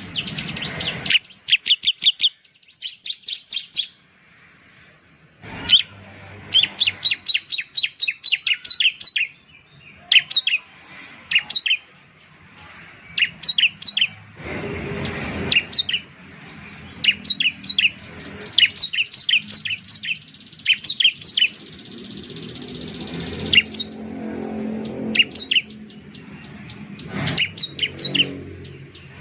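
Bar-winged prinia (ciblek) singing: quick bursts of sharp, high chirps, several notes a second, broken by short pauses between phrases.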